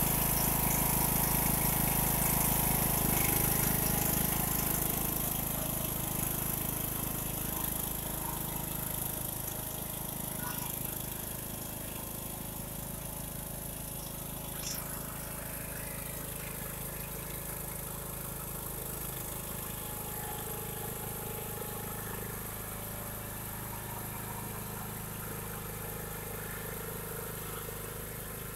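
Riding lawn mower engine running steadily as the mower is driven across the yard. It grows somewhat fainter over the first dozen seconds, then holds at a steady hum.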